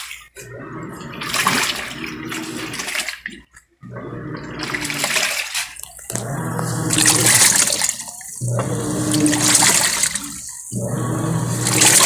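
Panasonic top-load automatic washing machine washing a full load: the water and laundry slosh in surges of about two seconds, five times, each ending in a short pause as the pulsator stops and reverses, with a low motor hum under each surge. It is running after its two worn suspension springs were replaced, which the repairman says has cured the loud noise of the motor scraping underneath.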